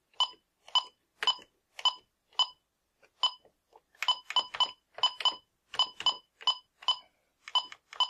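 Bosch B930 security keypad beeping once with each key press as a DNS name is typed in on its number keys. It gives about twenty short beeps: a slow, even run first, then a quicker, uneven run from about four seconds in.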